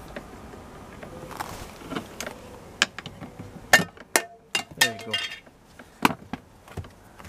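A screwdriver working a screw out of a car's plastic interior door panel: a handful of sharp clicks and taps with brief scraping between them.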